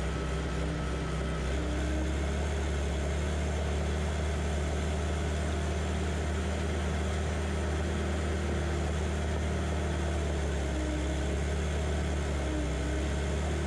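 John Deere 450J crawler dozer's diesel engine running steadily while the dozer pushes dirt with its blade, heard from the operator's seat on the machine.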